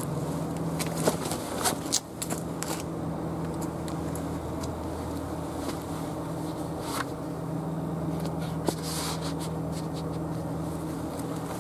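Clothing rustling and scraping handling noises with a few sharp clicks as a Glock 42 pistol is drawn from an inside-the-waistband holster, mostly in the first three seconds and again around seven to nine seconds in, over a steady low hum.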